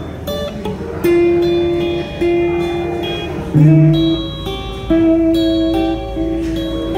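Electric guitar played through a Blackstar combo amplifier: a slow lead line of long, sustained single notes, a new note about every second.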